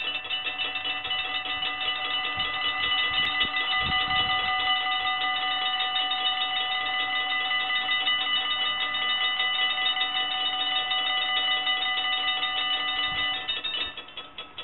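Dutch level-crossing bells ringing rapidly and steadily while the barriers lower. Near the end, once the barriers are down, the sound drops to a quieter, thinner ringing.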